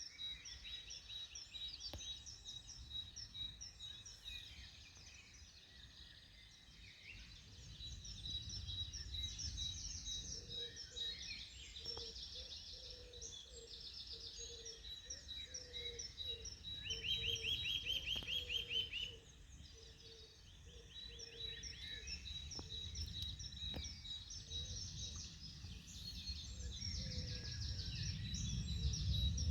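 Several birds singing in a morning chorus, with rapid trills and repeated high chirps throughout, and a lower repeated call joining about ten seconds in. A low, uneven rumble runs underneath and grows louder near the end.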